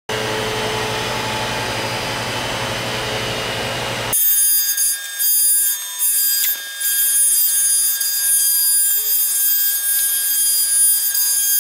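Robotic sand-milling cell at work: a steady machine hum and hiss for about four seconds, then after an abrupt change, a high-speed milling spindle whining with several high steady tones, dipping briefly a few times.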